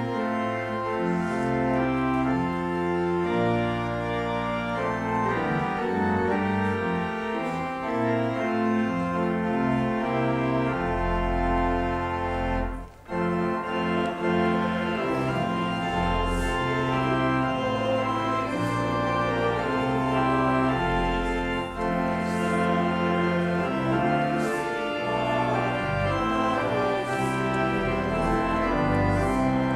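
Church organ playing sustained chords over moving bass notes, with a brief break about thirteen seconds in.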